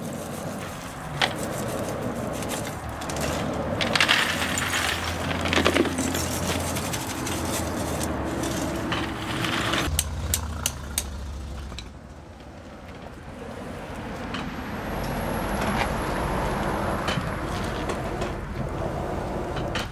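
A hammer strikes a steel tapping rod as it is driven into the slag tap hole at the base of an iron-smelting shaft furnace, opening it so molten slag runs out. The strikes come as repeated sharp knocks over a steady rushing background.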